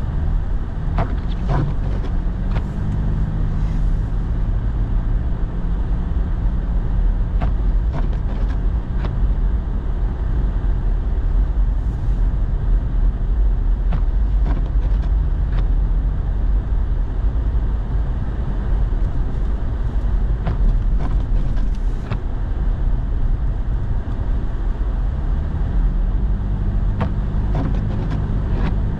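Truck heard from inside the cab while driving: a steady low engine and road rumble, the engine note rising as it speeds up in the first couple of seconds and again near the end, with a few faint scattered clicks.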